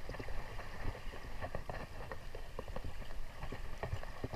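Small waves lapping and splashing against breakwater rocks, with many irregular little splashes and clicks over a low rumble of wind on the microphone.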